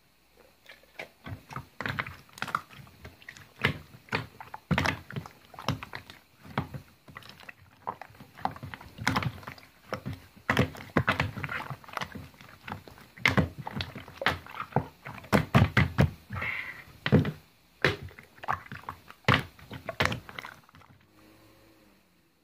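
Slime being squeezed, stretched and poked by hand, making a dense run of irregular sticky clicks and pops that stops about a second before the end.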